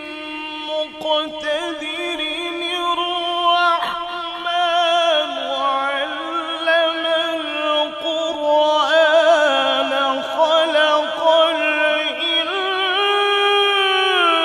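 A male qari's voice in melodic Quran recitation, drawing out one long ornamented phrase with a wavering pitch. The pitch steps down about five seconds in and climbs higher near the end.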